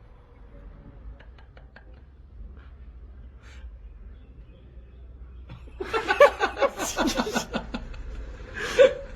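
A person laughing in quick, repeated bursts, starting about six seconds in after a quiet stretch with a low hum and a few faint clicks.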